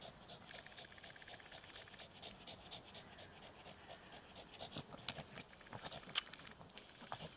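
A long-haired dog panting rapidly in quick, even breaths. A few light clicks come near the end, the sharpest about six seconds in.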